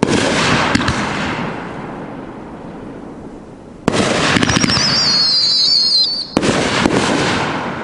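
Aerial shells from a 500-gram, 18-shot firework cake bursting overhead: a loud burst at the start, another about four seconds in, and a third near six and a half seconds, each fading slowly. Between the second and third bursts comes a shrill, wavering whistle from a whistling-tail shot, falling slightly in pitch.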